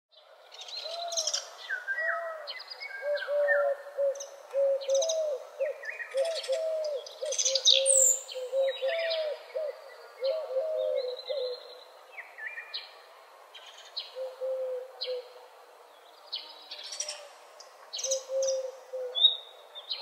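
A chorus of several birds singing and calling: many short high chirps and trills, over a low repeated wavering note that is strongest in the first half.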